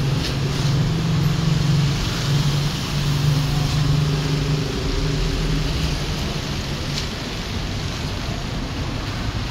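Road traffic: a steady wash of vehicle engines and tyre noise, with a low engine hum that is strongest for the first several seconds and then eases off.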